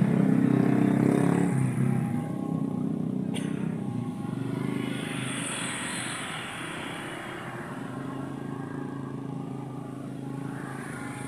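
Busy road traffic of motorcycles and cars passing close by. A nearby engine is loudest at the start and fades within about two seconds, and another vehicle swells past around five to six seconds in. There is a single sharp click about three and a half seconds in.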